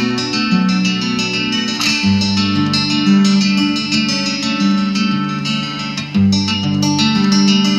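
Solo acoustic guitar played fingerstyle: a quick, steady stream of plucked notes over ringing bass notes that shift every second or so.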